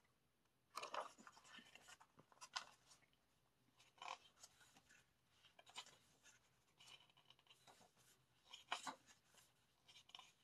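Faint paper rustling and soft flicks from the pages of an album photobook being turned and handled, in scattered short bursts.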